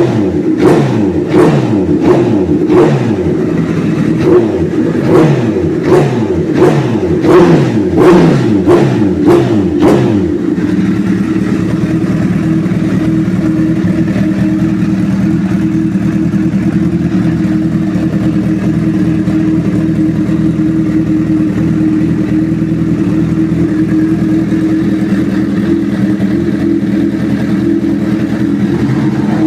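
Honda CBR1000RR inline-four engine breathing through an aftermarket sport exhaust, revved in a quick series of short throttle blips for about ten seconds, then settling into a steady idle.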